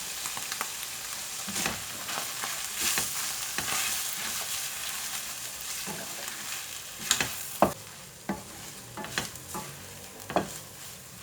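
Shrimp, calamari and vegetable filling sizzling in a frying pan while it is stirred, with sharp clicks and scrapes of the utensil against the pan. The sizzle quietens about two-thirds of the way through.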